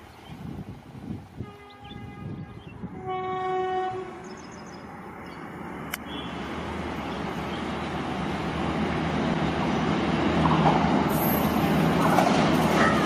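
Train horn sounding twice, a short faint note and then a longer, stronger blast, as a passenger train runs away. After a cut, an Indian Railways electric locomotive hauling a Shatabdi Express approaches: rumble and wheel clatter grow steadily louder.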